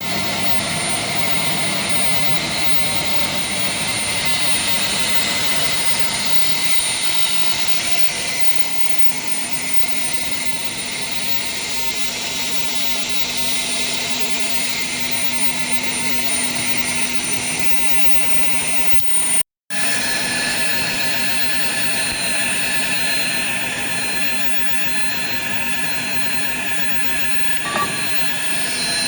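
Aluminium ingot casting line and induction melting furnace running: a steady industrial roar with a thin, high, constant whine over it. The sound drops out abruptly for a moment about two-thirds of the way through, then carries on the same.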